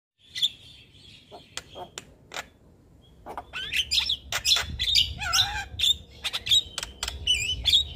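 Javan myna singing. A buzzy note and a few sharp chips in the first couple of seconds, then from about three seconds in a fast, dense run of clicks, whistles and warbled chatter.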